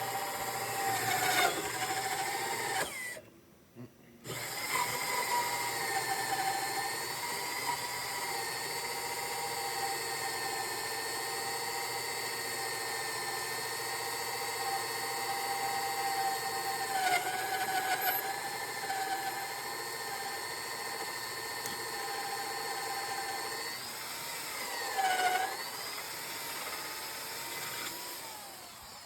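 Power drill turning a 2-inch hole saw into a solid wooden 4-by-4, running with a steady whine. It stops briefly about three seconds in and then starts again. Its pitch sags twice under load as the saw bites into the wood, and it winds down near the end.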